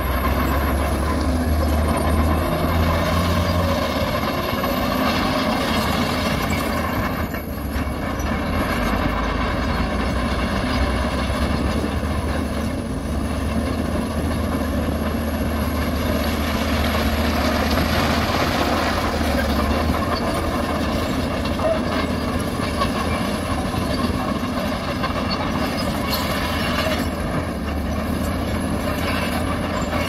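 Heavy diesel earthmoving machinery running steadily, led by a Shantui crawler bulldozer's engine as it pushes rock, with a deep low hum and a dense, even rumble. A faint, thin high whine wavers above it.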